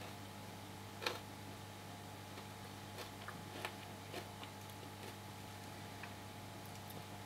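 Steady low hum of reef aquarium equipment, with a few scattered sharp clicks, the loudest about a second in.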